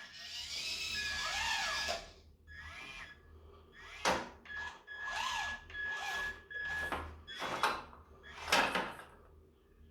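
Small electric motors and gearing of a 1/32-scale Siku Control 32 Liebherr RC excavator whining in short bursts of one to two seconds, the pitch rising and falling within each burst, with a few sharp clicks or knocks between them.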